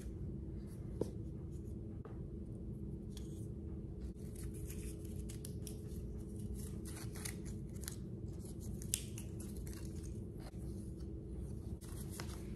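Crinkling and tearing as the protective wrap is peeled off a laptop power adapter: scattered short rustles, with a sharper click about a second in and another about nine seconds in, over a steady low hum.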